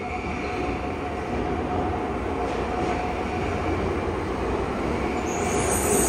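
Yokohama Municipal Subway Blue Line train with Mitsubishi GTO-VVVF traction arriving at an underground platform, its rumble growing louder as it comes out of the tunnel. A high-pitched squeal begins near the end as it slows for the station.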